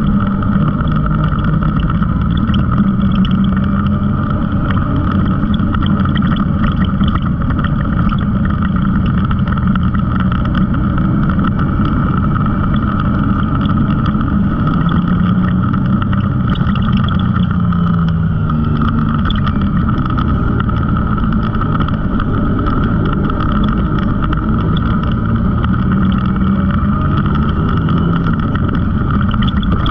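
Side-by-side UTV engine running steadily under way, heard from on board, with the engine note shifting up and down briefly a little past halfway.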